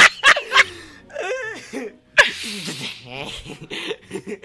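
People laughing hard, in breathy gasps and short high-pitched giggles, with a sudden sharp burst of breath about two seconds in.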